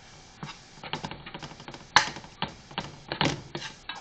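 Metal slotted spatula scraping and clacking against a skillet while stirring flour into cooked ground beef to brown it. Irregular clicks and scrapes, the loudest about two seconds in.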